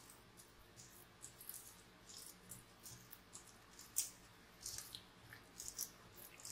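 Faint, irregular wet squelches and smacks of soft, sticky yeast dough, slick with oil, being kneaded by hand in a glass bowl; the loudest comes about four seconds in.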